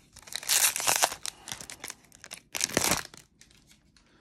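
Foil baseball-card pack wrapper being torn open and crinkled in the hands, in two crackling bursts: about half a second in, and again around two and a half seconds in.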